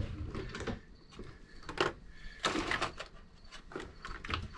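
Light clicks, knocks and scrapes at uneven intervals from someone rummaging through small objects to fetch a marker.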